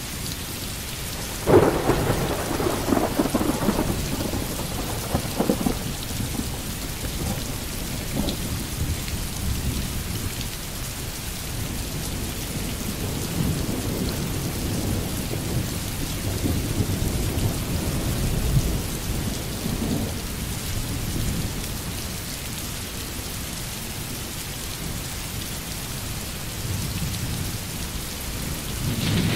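Recorded thunderstorm: steady rain, with a loud clap of thunder about a second and a half in that rumbles on for several seconds, and softer rolling thunder later.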